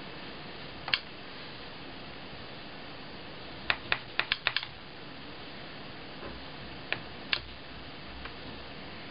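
Sharp plastic clicks of a stylus tapping the touchscreen of a Sharp Mobilion HC-4500 handheld PC: a single tap, then a quick run of about six taps, then two more, over a faint steady hiss.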